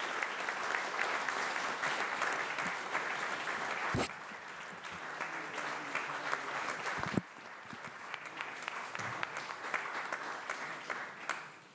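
Applause from an audience and panel, dense at first, thinning after a low thump about four seconds in and again after a second thump near seven seconds, then dying away near the end.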